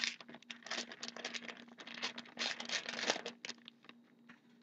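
Hockey trading cards being shuffled by hand: quick rustling and scraping of card stock sliding against card, in rapid bursts that die away about three and a half seconds in, leaving a few light clicks.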